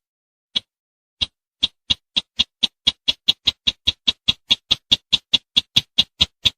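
Call of the sintar semak, a bush-dwelling crake, played as a hunting lure: short sharp notes, sparse at first, then quickening about a second in into a steady run of about four a second.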